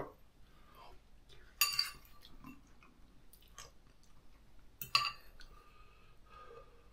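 Someone eating noodles from a bowl with a fork: quiet chewing, and the metal fork clinks against the bowl twice, about a second and a half in and again about five seconds in.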